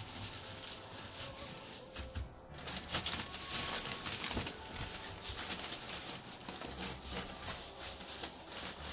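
Plastic bag of fine pine shavings crinkling and crackling as it is gripped and tipped, with the dry shavings rustling inside.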